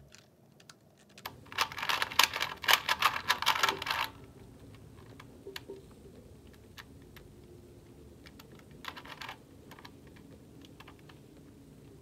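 Plastic layers of a Rubik's tactile 3x3 cube clicking and clacking as they are turned by hand. A dense run of fast turns starts about a second in and lasts nearly three seconds, then come scattered single turns with a short flurry about nine seconds in.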